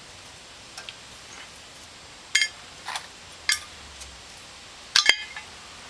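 Small metal parts clinking: a handful of sharp, ringing metallic clinks a second or so apart, the last two in quick succession near the end.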